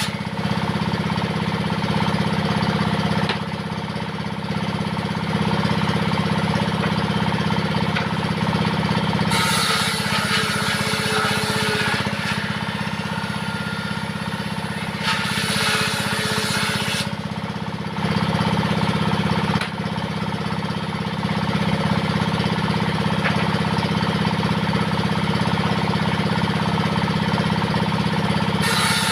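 Diesel engine running steadily, driving a homemade table saw; the blade cuts into wood, adding a bright ripping noise about ten seconds in, again for a couple of seconds around sixteen seconds, and once more starting near the end.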